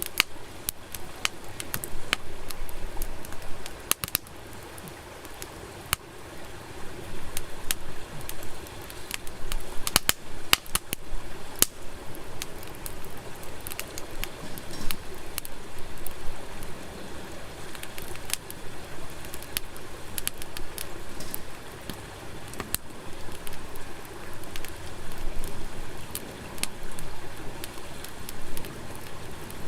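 Wood fire crackling, with frequent sharp, irregular pops over a steady low rush.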